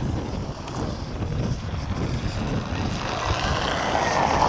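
Wind rumbling on the microphone over outdoor street noise. A louder hiss swells about three seconds in.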